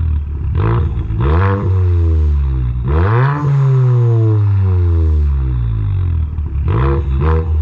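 2013 Ford Fusion's 1.6 EcoBoost turbocharged four-cylinder, with a GTX2860R turbo and a 3-inch exhaust ending in dual 4-inch outlets, free-revving at the tailpipe while parked. Two quick blips come first, then a bigger rev about three seconds in that winds down slowly, then two more quick blips near the end.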